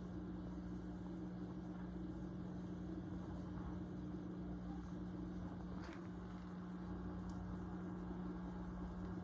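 Steady low mechanical hum, with one faint click about six seconds in.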